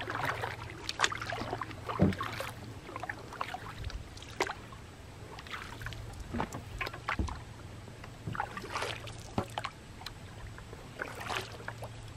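Canoe being paddled: irregular splashes and sharp knocks from the paddle in the water and against the hull, over a faint steady low hum.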